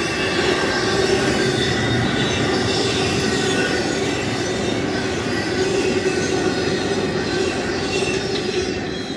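BNSF intermodal freight cars carrying truck trailers rolling past at speed: a steady clatter and rumble of steel wheels on rail, with a thin ringing squeal from the wheels over it. It begins to fade right at the end as the tail of the train goes by.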